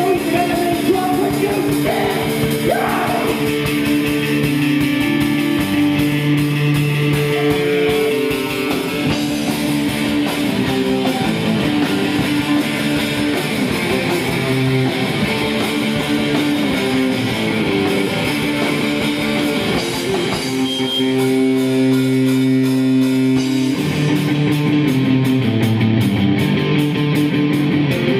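Rock band playing live: electric guitars and a drum kit, with a male voice singing.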